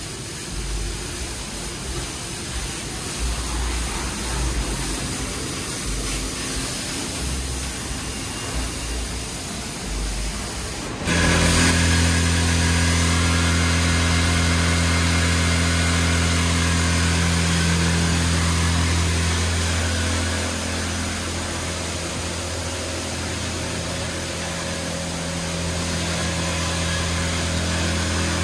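Washworld Razor touchless car wash spraying a vehicle: at first a softer hiss with an uneven low rumble, then about eleven seconds in the high-pressure pump cuts in abruptly, giving a loud steady hum under a hard hiss of spray that runs on.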